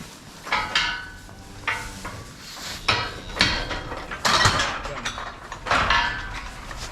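Irregular metal clanks and rattles: a string of sharp knocks over several seconds, the loudest bunched about four and a half seconds in.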